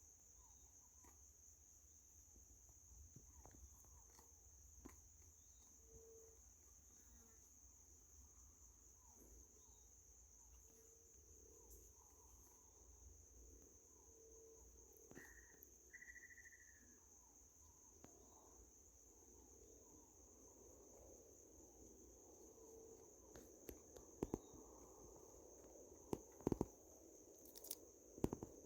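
Faint steady high-pitched chirring of crickets, with scattered soft clicks and rustles, two short whistled calls about halfway through, and a few sharper knocks near the end.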